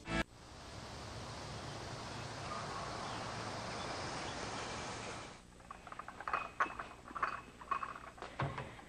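Steady outdoor ambience hiss, then from about five seconds in, china and glassware clinking and knocking as dishes are handled in a cabinet, with one dull thump near the end.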